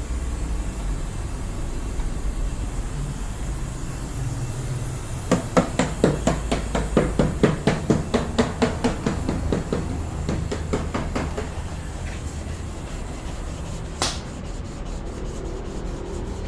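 Rapid hammering, about three to four sharp blows a second for roughly six seconds, over a steady low hum, with one more single knock near the end.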